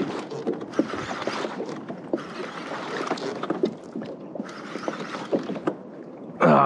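Sea water sloshing and lapping against a fishing kayak's hull, swelling in three rushes of hiss, with light knocks and taps throughout. A brief loud voice near the end.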